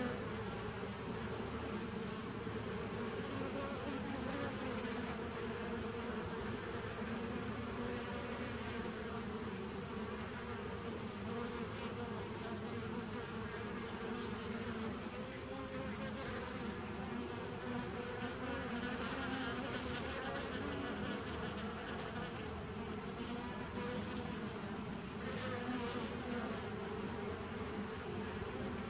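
Honeybees buzzing at the entrance of a nuc hive: a steady, continuous hum of many bees flying in and out, over a steady high hiss.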